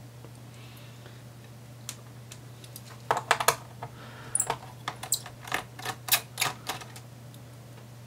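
Light, irregular clicks and taps of a small Phillips screwdriver and tiny screws against a laptop's plastic base panel as the base screws are taken out and set down. The clicks come in clusters starting about three seconds in.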